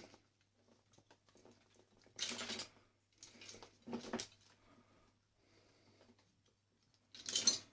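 Short clatters and rustles of wire and small parts being pulled out of a coffee maker and handled: a few separate bursts, the loudest about two seconds in and again near the end.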